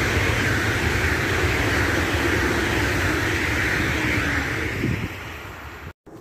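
Deutsche Bahn ICE high-speed train passing at speed: a loud, steady rush of wheels on rails and air over a low rumble, which fades as the last cars go by about five seconds in. The sound cuts off suddenly near the end.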